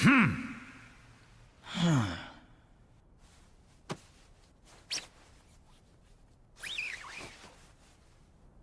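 Minecraft villager 'hmm' grunts dubbed in as a meme: two short nasal grunts, each falling in pitch, one at the start and one about two seconds in. Two sharp clicks and a further short sound come near the end.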